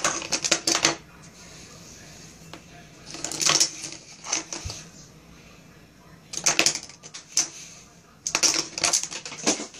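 Eyeglasses clattering and scraping across a hard desktop as a small rodent drags them, in several bursts of rapid clicks with quieter gaps between.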